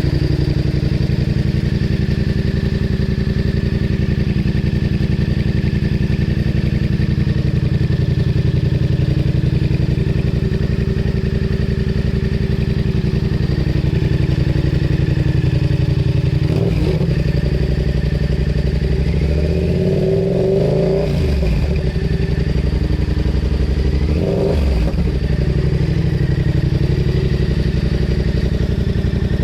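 Yamaha MT-07 parallel-twin engine idling through a replica Akrapovič full exhaust with the baffle removed, giving its raw, unbaffled sound. In the second half the pitch rises and falls briefly a few times, the longest rise a couple of seconds long.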